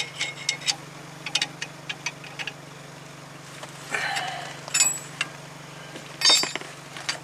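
Irregular metal clicks and clinks from a C-frame ball joint press and hand tools being worked on a truck's front suspension just after a new ball joint has been pressed in. There is a short scrape near the middle and a louder clatter near the end, over a steady low hum.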